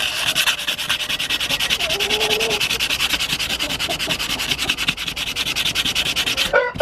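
Fine sandpaper rubbed briskly back and forth over the steel blade of a Felco secateur, cleaning the dirt off the back of the blade: a fast, even scratching of several strokes a second that stops shortly before the end.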